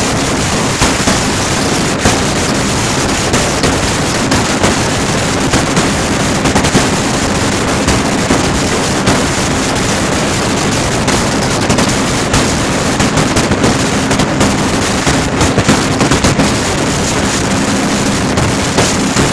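2014 Sea-Doo RXT-X aS personal watercraft running at full speed, about 68 mph: the supercharged Rotax engine makes a steady drone under heavy rushing wind. Irregular sharp thumps break in as the hull slaps the chop.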